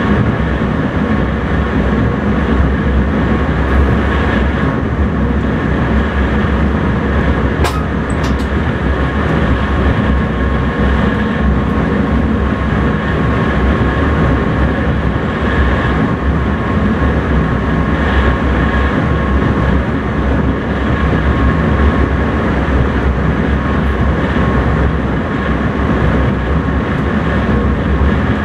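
Electric intercity train running steadily, heard from the driver's cab: continuous rumble and rail noise with a faint steady whine. About eight seconds in there is one sharp click, followed by a couple of fainter ones.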